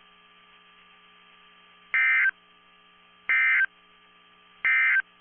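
Three short bursts of Emergency Alert System (SAME) digital data tones, the end-of-message code that closes a NOAA Weather Radio alert. Each burst lasts about a third of a second, about 1.3 s apart, over a faint steady hum.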